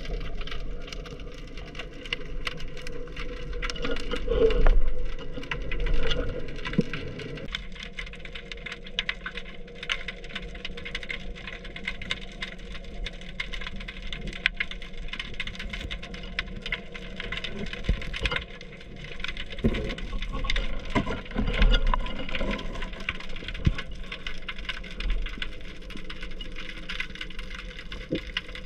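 Underwater sound picked up by a speargun-mounted camera in its housing: a muffled steady rumble and hum, with many small clicks and knocks throughout.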